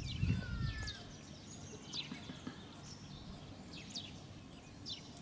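Wild birds calling: short, sharply falling chirps repeated every second or two, with a brief whistled glide about half a second in. A low rumble in the first second.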